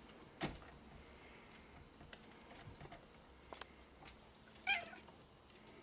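Domestic cat giving one short, high meow a little before five seconds in, with a sharp click about half a second in and a few faint taps.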